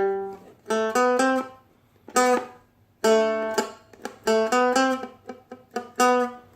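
Seagull Merlin M4 stick dulcimer being picked: a melody phrase of single plucked notes and notes with extra strings sounding together, each ringing briefly before the next, in small groups with short gaps.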